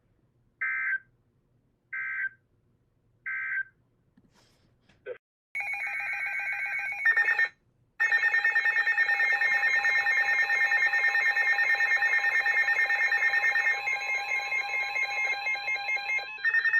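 Emergency Alert System tones: three short, identical data bursts about 1.3 seconds apart, the end-of-message code that closes a warning. About five seconds later a loud, rapidly pulsing alert tone starts. It breaks off briefly and then holds steady, the attention signal ahead of the next warning.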